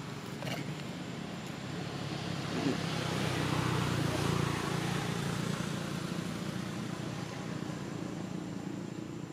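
A motor vehicle engine hums steadily. It grows louder toward the middle and then fades.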